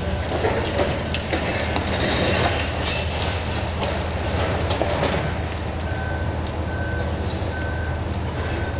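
Ultra-high-reach demolition excavators working on a concrete building: diesel engines running steadily under the grinding, crunching and clattering of concrete and steel being pulled down, with brief metal squeals. About six seconds in, a machine's warning beeper sounds four times.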